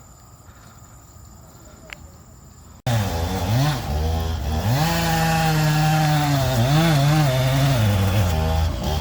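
Faint steady insect chirring, then, about three seconds in, a chainsaw comes in abruptly at full volume. Its engine pitch rises and falls as it is revved through a cut.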